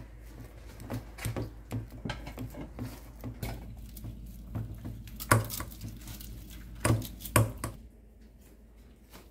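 Metal fork and spoon clinking and scraping against a ceramic bowl while mashing boiled potatoes and mixing in boiled eggs, with a few sharper clinks in the second half before the tapping stops near the end.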